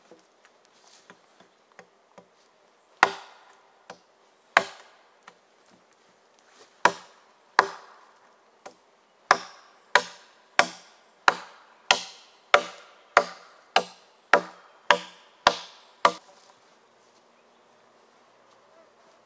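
Axe chopping wood: a few light taps, then sharp blows, irregular at first and then a steady run about every two-thirds of a second, stopping about sixteen seconds in. A faint insect buzz runs underneath.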